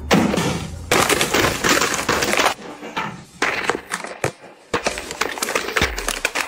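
Plastic-wrapped snack packets crinkling and clattering as handfuls are dropped into plastic storage bins, in several separate bursts with short gaps between them.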